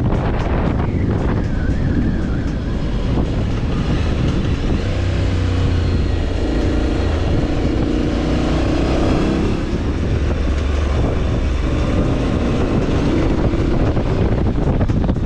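Motorcycle engine running steadily under way, its pitch holding fairly even with a stronger stretch in the middle.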